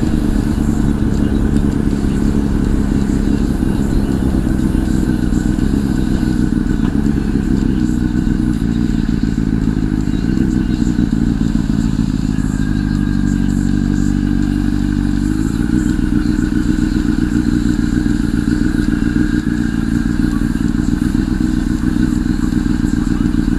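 Honda CBR1000 inline-four running through a Two Brothers aftermarket exhaust while riding, heard from the helmet microphone with a steady rush of wind. The engine note holds fairly steady, drifting slightly in pitch and settling to a new pitch about fifteen seconds in.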